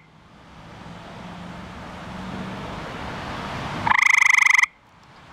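A male eastern gray tree frog (Hyla versicolor) gives one loud trill of rapid pulses about four seconds in, lasting under a second: its mating call to attract a female. A fainter steady hiss fills the gaps between calls.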